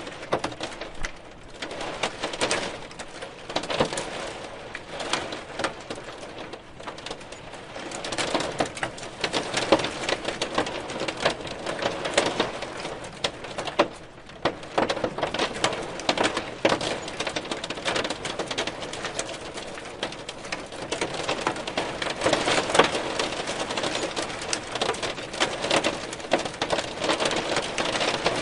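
Hailstones falling and striking a hard surface: a dense, irregular patter of sharp ticks over a steady hiss. It thickens about a third of the way in and again toward the end.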